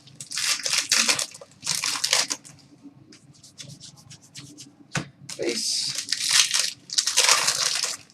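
Hockey trading cards being slid and flipped by hand, a series of short papery swishes with one sharp tap about five seconds in.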